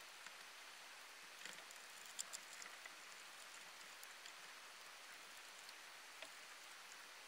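Near silence: faint hiss with a few soft scattered clicks, most of them clustered about one and a half to three seconds in.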